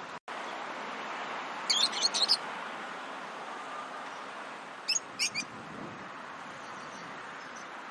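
Lovebirds chirping: a quick run of sharp, high chirps about two seconds in and a few more about five seconds in, over a steady background hiss.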